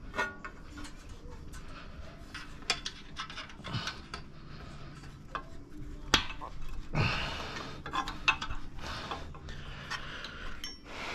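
Irregular metallic clinks and knocks of hand tools and metal parts being handled, with a few short stretches of scraping noise in between.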